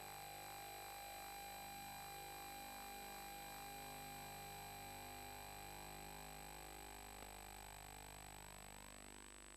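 Faint steady hum and hiss with thin high whines: the background noise of a VHS tape being played back with no programme sound. The lowest whine fades out near the end.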